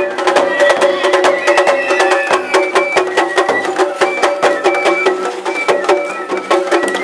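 Japanese festival float music (matsuri-bayashi): quick, even percussion strikes under a melody of held notes that step from pitch to pitch, played from the float as it is pulled along.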